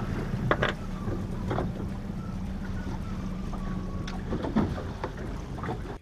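Steady low hum of a small fishing boat's engine running, with a few light knocks and clicks of gear being handled on the deck.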